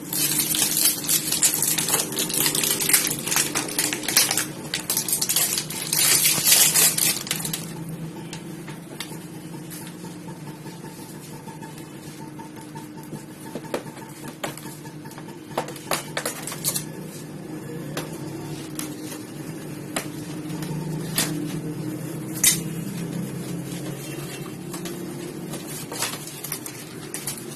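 Plastic shrink-wrap being torn and crinkled off a cardboard product box, a dense crackle for the first several seconds. Then scattered clicks and rustles of the cardboard box and its plastic inner tray being handled and slid out, over a steady low hum.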